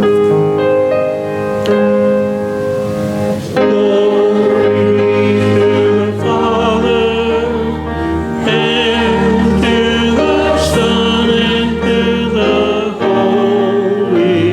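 Keyboard-accompanied hymn: a short instrumental introduction, then voices come in singing about three and a half seconds in, with the accompaniment continuing.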